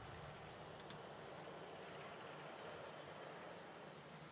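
Faint outdoor background noise with a faint high chirp repeating through it, and one soft click about a second in.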